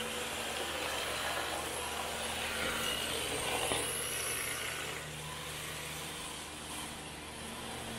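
Electric MST 2.0 rear-wheel-drive RC drift car running and sliding on concrete: a steady motor hum under a broad hiss of motor and tyres, louder for a moment around the middle.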